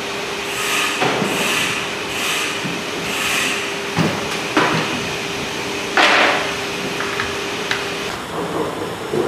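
Workshop machine noise: a steady hum with a few sharp metallic knocks, the loudest about six seconds in; the hum stops near the end.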